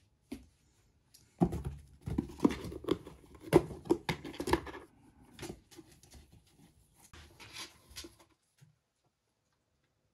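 Kitten clawing and scrabbling at a cardboard box, its paws scraping and knocking on the cardboard in an irregular run of scratches that stops about eight seconds in.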